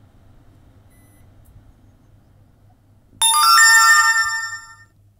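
A short electronic chime of several ringing tones, like a phone ringtone or notification, sounding suddenly about three seconds in and fading out within about two seconds.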